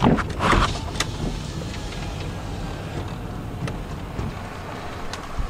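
Car running, heard from inside the cabin as a steady low rumble of engine and road noise, with a few light clicks.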